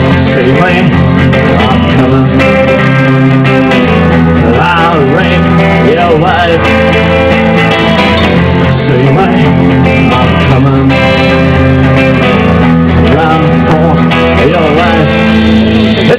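Background music: a guitar-led band track with a steady beat.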